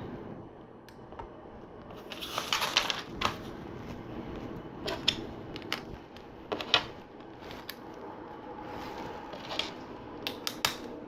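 Small plastic LEGO pieces being handled and pressed onto a build: scattered sharp clicks, with a short stretch of rustling about two seconds in.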